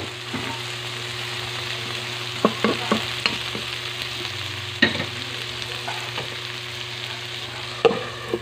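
Mackerel with diced potato, onion and bell pepper sizzling as it sautés in a metal wok. A handful of sharp clinks and knocks against the pan come as it is stirred and a glass lid is set on.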